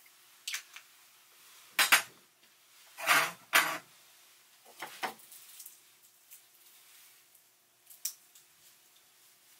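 Dishes and cutlery being handled: a series of separate clinks and clatters, the loudest a double clatter around the middle.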